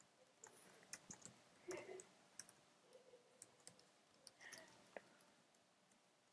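Faint, irregular key clicks of a computer keyboard as text is typed.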